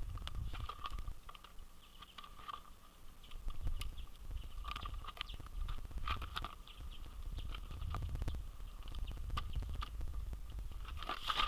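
Birds pecking seed at a feeder: irregular sharp taps and clicks, over a low rumble of wind on the microphone.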